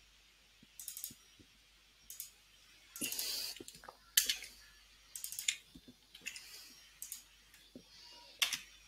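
Quiet, irregular clicking of computer keyboard keys and a mouse button while code is typed, in short bursts about a second apart.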